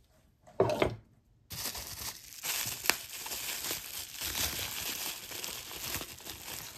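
Packaging being unwrapped by hand, crinkling continuously from about a second and a half in. Just before, a brief handling bump.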